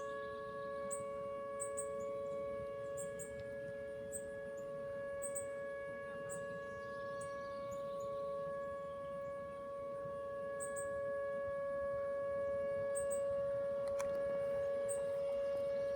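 Outdoor tornado warning siren sounding one steady, held two-note tone that doesn't rise or fall, growing slightly louder toward the end.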